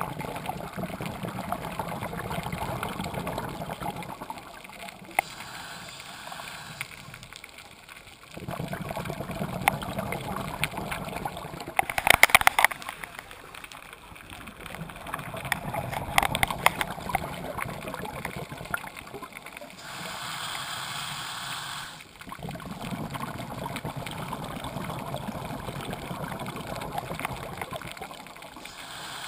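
Scuba diver's regulator breathing underwater: long bubbling exhalations alternating with shorter hissing inhalations, with a burst of crackling bubbles about twelve seconds in.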